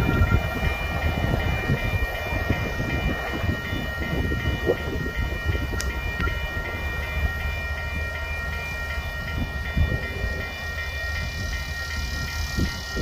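Freight train's railcars, mostly covered grain hoppers, rolling along the track: a steady low rumble of wheels on rail that fades slightly as the train moves away. A few thin, steady high tones run above the rumble.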